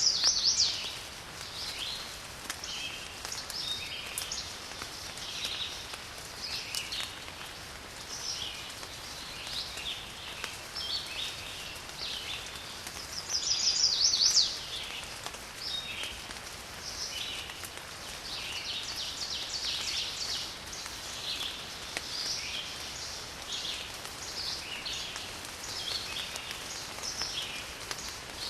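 Several garden birds chirping and calling over a steady hiss of rain. Twice, at the very start and about halfway through, one bird gives a louder, rapid trill.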